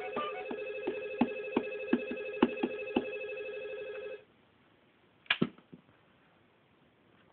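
Sticks knocking on the rubber pads of a ddrum electronic drum kit, about two or three hits a second, over a steady ringing electronic tone. Both stop abruptly about four seconds in, followed by one louder knock a second later.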